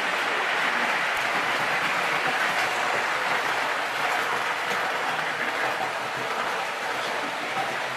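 Electric tinplate model train running on metal track: a steady rattling rumble of wheels on the rails with faint clicks, easing off slightly near the end.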